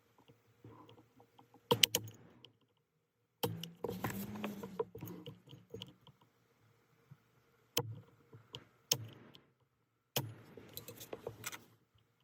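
Small metal parts and tools clinking and clattering as they are handled, in several short bursts of sharp clicks separated by silent gaps.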